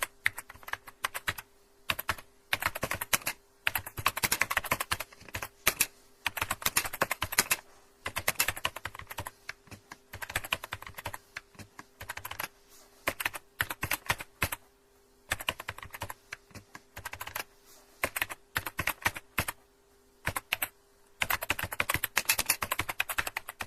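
Computer keyboard being typed on: rapid runs of key clicks in bursts of a second or two, broken by short pauses, over a faint steady hum.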